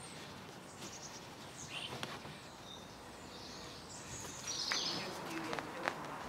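Outdoor background noise with small birds chirping now and then, the chirps busiest a little after four seconds in, along with a few faint clicks.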